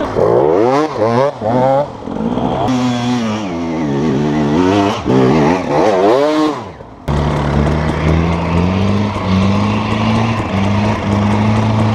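Enduro dirt bike engine revving up and down in quick throttle blips. About seven seconds in, the sound cuts abruptly to a lower, steadier engine note that climbs in pitch in steps: an off-road vehicle's engine pulling up a steep slope.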